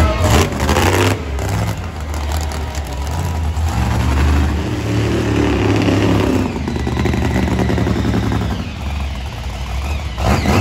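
Big monster truck engines running loudly, the revs rising and falling as the trucks are driven around the arena.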